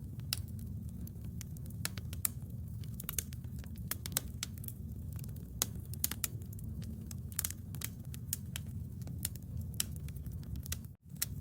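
Bonfire burning: irregular sharp crackles and pops, several a second, over a steady low rumble of the flames. The sound cuts out for a split second near the end.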